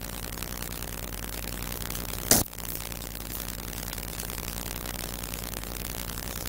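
Steady low hum and hiss, with a single sharp knock about two seconds in.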